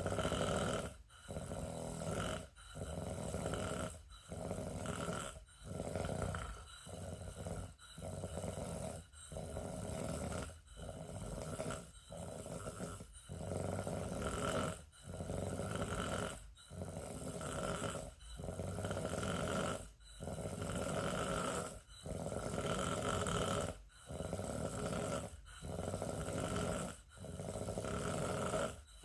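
Steady snoring from a sleeper, a snore on nearly every breath with only a short pause between breaths, about one breath every one and a half seconds.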